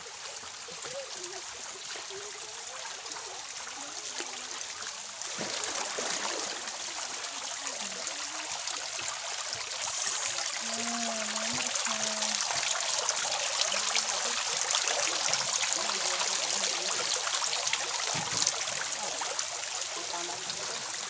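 Water trickling and splattering down a mossy rock face into a shallow stream, a steady rushing patter that grows louder about five seconds in and again about ten seconds in.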